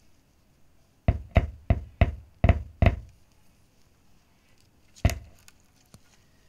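A JBL subwoofer driven by a homemade 2SC5200/2SA1943 transistor amplifier giving six quick, loud bass thumps, then one more about two seconds later. These are power-on pops as the alligator clip touches and leaves the amplifier's supply wire.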